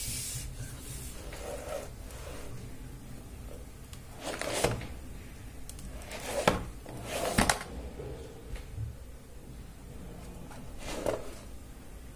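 Cardboard box handled and turned over on a tabletop by hand: about four short scraping, rustling sounds of card rubbing against the table and fingers, over a faint low steady hum.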